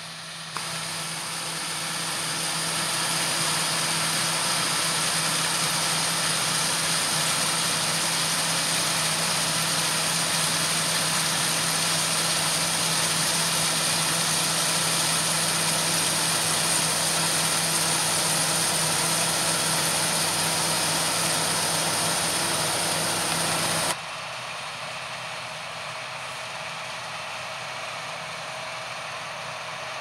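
John Deere W550 combine harvester and a John Deere tractor with grain trailer running side by side while the combine unloads on the move: a steady engine and threshing drone with a strong hiss, growing louder over the first few seconds. Near the end it drops abruptly to a quieter, steady combine drone.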